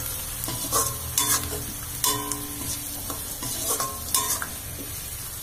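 Metal spoon scraping and clinking against a metal kadai while stirring chopped onions frying in oil, with a few ringing clinks over a steady sizzle.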